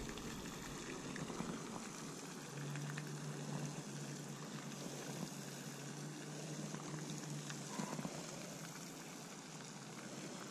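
Steady hiss of outdoor background noise, with a faint low hum for a few seconds in the middle and a few faint ticks.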